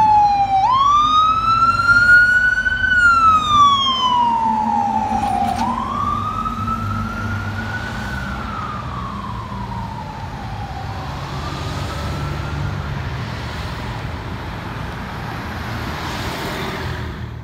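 Siren of a KME fire engine on a slow wail, rising and falling in pitch every five seconds or so, fading as the engine drives away. Underneath is the low rumble of passing traffic.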